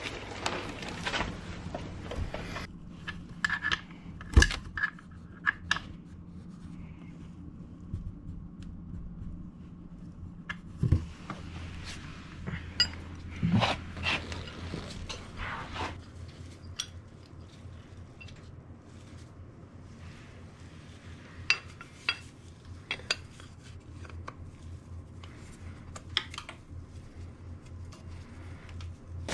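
Scattered metal clinks and knocks, as of tools handled against metal parts, over a low steady hum; the loudest knocks fall about four seconds in and again about eleven seconds in.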